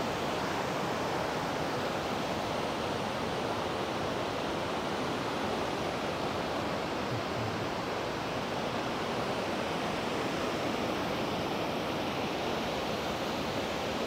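Triple Falls, a waterfall of three cascades, rushing with a steady, even noise of falling water.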